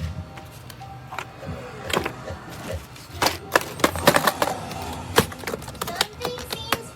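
Rapid, irregular clicks, knocks and clatter of small hard objects being handled, busiest in the second half.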